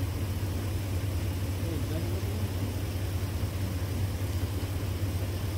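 A steady, unchanging low engine hum from an idling motor, with faint voices in the background.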